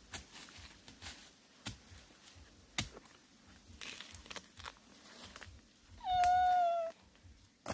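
Scattered dull knocks of a digging pole striking into soil and roots in a bamboo thicket. About six seconds in comes one loud meow, under a second long, rising at the start and then held level.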